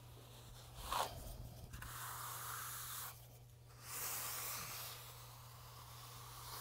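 A hand trowel scraping over freshly spread, gritty trowel-grade urethane concrete in several long smoothing strokes, each a second or so, the first starting sharply about a second in.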